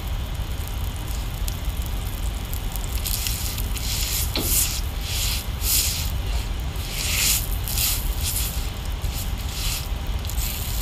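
Liquid splashed over a hot stone cooking slab, hissing and sizzling in repeated bursts from about three seconds in, over a steady low hum.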